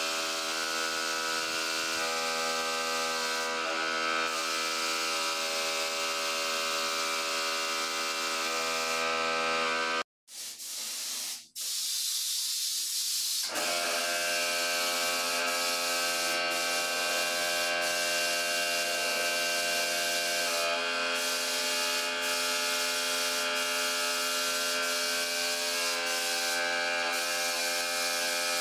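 Compressed-air paint spray gun spraying, a steady hiss over the steady hum of the running air compressor. The sound cuts out for a moment about ten seconds in, then carries on as before.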